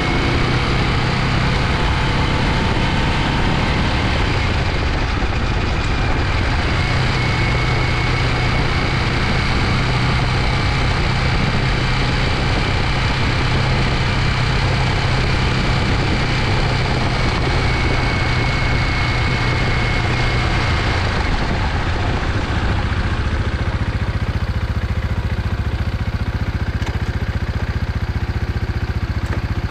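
Fantic Supermoto 125 motorcycle's engine running steadily while riding along a gravel track, heard close up from the front fork. The engine note eases about twenty seconds in.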